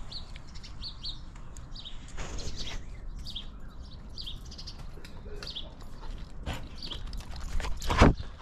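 Small birds chirping in short, high, repeated notes over a low rumble, with one brief loud knock near the end.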